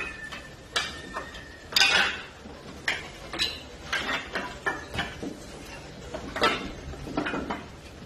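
Split firewood knocking and clattering, wood on wood, in irregular sharp knocks about once or twice a second.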